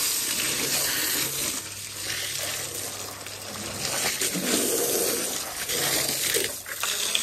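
A strong jet of water from a hose spraying and splashing onto a tractor's muddy rear tyre: a steady hissing splatter that rises and falls as the jet moves over the tyre.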